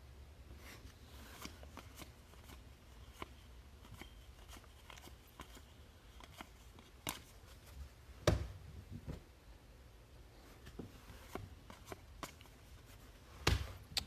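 Baseball trading cards being handled and flipped through: soft scattered rustles and small clicks, with two louder knocks about eight seconds in and near the end.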